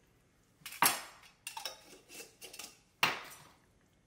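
Metal cookware and utensils clanking as they are handled on the stovetop: a run of sharp knocks with short ringing, the loudest about a second in and again about three seconds in, with lighter clinks between.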